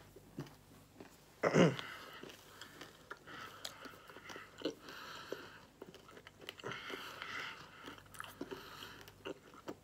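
A person chewing Nerds Rope, a gummy rope candy coated in tiny crunchy Nerds, close to the microphone: faint, scattered wet clicks and small crunches. About a second and a half in there is a brief falling vocal 'mm'.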